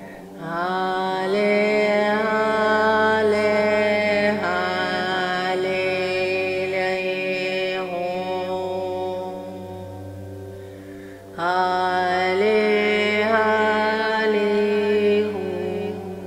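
A voice toning long held vowel notes in light-language chant style, in two long phrases that step up and down between pitches with short glides. A faint, steady low drone runs underneath.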